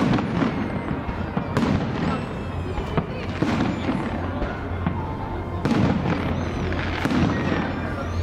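Aerial fireworks shells bursting overhead in a salute display: several sharp bangs a second or two apart, over a continuous background of noise.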